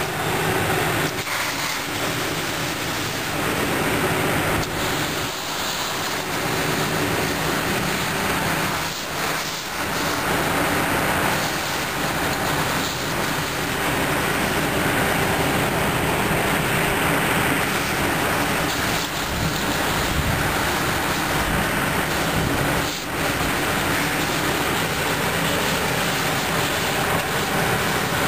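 A fire hose spraying water onto a burning pickup truck, with a steady hiss of water and steam. A running engine drones steadily underneath, and the sound briefly drops a few times.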